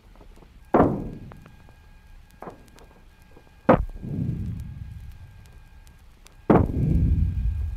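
Seismometer recording of aftershocks of the 1952 California earthquake, played back speeded up so the ground motion becomes audible. Three sudden crashes, each trailing off in a deep rumble, with a lighter knock between the first two; a bone-crushing texture.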